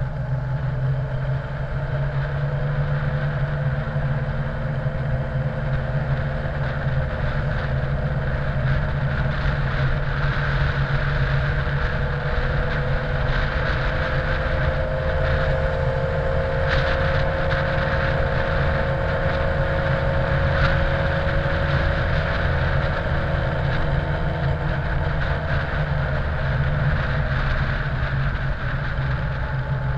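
Honda X4 motorcycle's inline-four engine running at a steady cruise, with wind rushing over the action camera's microphone. The engine note rises a little midway and eases back down.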